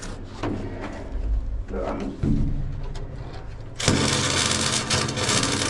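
Welding arc struck about two-thirds of the way in: a sudden, steady crackling hiss that holds to the end. Before it there are softer handling noises and a low rumble.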